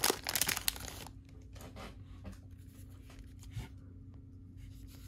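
Foil trading-card pack wrappers crinkling and tearing open for about the first second, then only faint rustles and clicks as the cards are handled.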